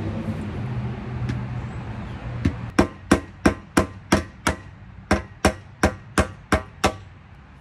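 Claw hammer tapping push pins into a Sunfish mast base on the aluminium mast: about a dozen sharp taps in two runs of six, roughly three a second, with a short pause between. A steady low hum runs before the tapping starts.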